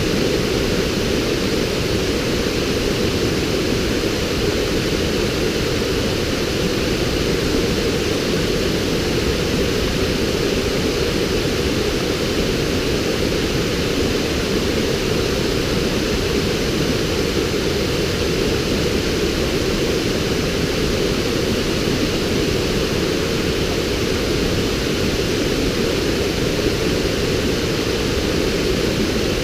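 Water pouring over the rocks of a river waterfall: a loud, steady rush that does not change, fullest in its deep part.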